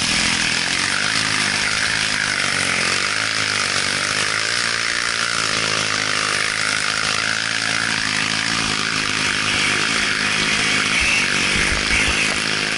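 Dirt bike engine running while riding over loose gravel, its pitch rising and falling with the throttle, under a steady hiss.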